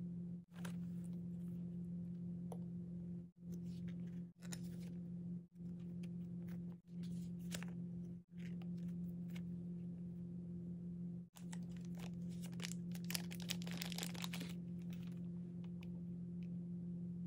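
Hands handling stationery and packaging: rustling, crinkling and light clicks, busiest from about 12 to 15 seconds in, over a steady low hum. The sound cuts out briefly several times.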